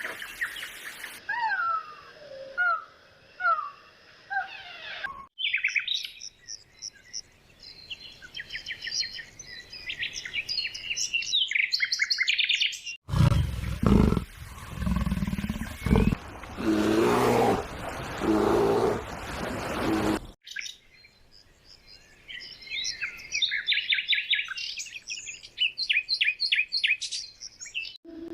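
A run of separate wild animal sound clips: birds calling in short falling notes, then fast, high trilling bird song. About halfway through comes roughly seven seconds of a large animal's loud, low roaring, followed by more trilling bird song.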